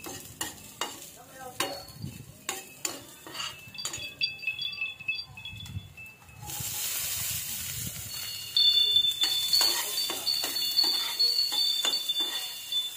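Metal spoon stirring and scraping minced garlic and onion around a stainless steel frying pan, with many sharp clicks. About six seconds in, a sizzle of frying in oil starts and gets louder a couple of seconds later as the sauté gets going.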